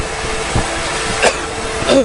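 Heavy diesel machinery running steadily during loading of a roller compactor onto a self-loader truck, with three short knocks about half a second, one and a quarter seconds and two seconds in.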